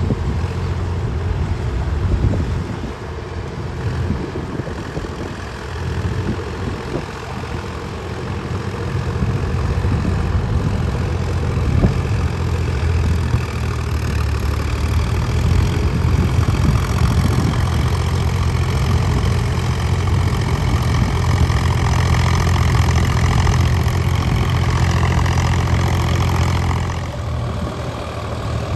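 Tractor diesel engine running steadily, growing louder about ten seconds in and easing off shortly before the end.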